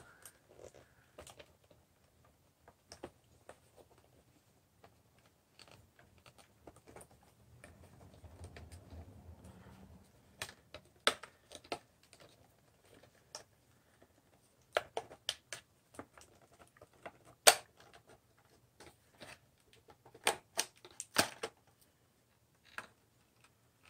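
Plastic case of an Emerson CKS3528 clock radio being handled and pried apart: scattered sharp clicks and taps, louder and more frequent in the second half, with a soft rubbing for a couple of seconds about eight seconds in.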